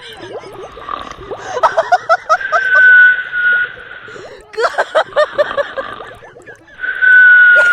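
Exaggerated snoring in repeating cycles: a high, steady whistle held for about a second, then a run of quick, bubbly sputtering puffs. The whistle comes twice, about two and a half seconds in and again near the end.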